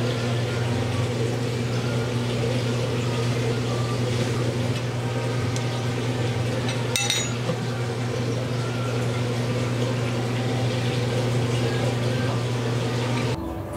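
Steady low hum of kitchen equipment over a constant noisy wash, with one short clink of dishware about seven seconds in; the hum cuts off just before the end.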